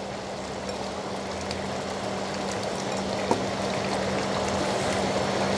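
Chicken curry bubbling in a steel pot on the boil, a steady crackling simmer that grows slowly louder, over a steady low hum. A single short knock sounds about three seconds in as potato pieces are tipped in.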